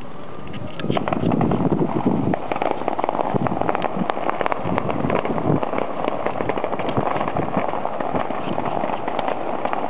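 Hand-held tezutsu tube fireworks spraying, a dense crackling rush that starts suddenly about a second in and keeps on steadily.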